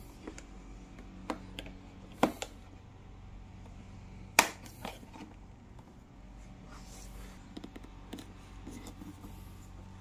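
A small flat screwdriver prying a power switch out of a children's electric ride-on motorcycle's plastic body: light scraping and several sharp plastic clicks, the loudest about four and a half seconds in, with softer ones near the end.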